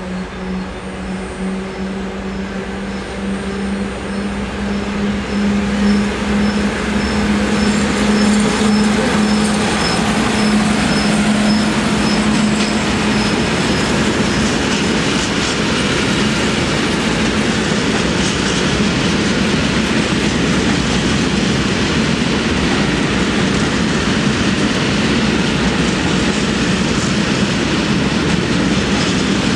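FS class E655 3 kV DC electric locomotive passing at the head of a freight train. It gives a steady hum that stops about 13 seconds in. The rumble and rattle of the wagons' wheels over the rails grows louder through the first several seconds and then runs on steadily.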